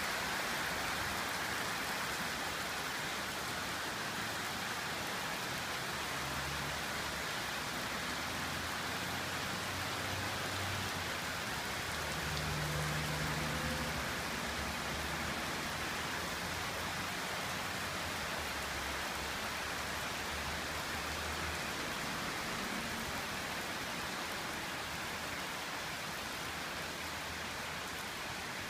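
Heavy tropical rain pouring steadily onto a paved driveway and garden plants, a dense, even hiss. A faint low rumble comes and goes through the middle stretch.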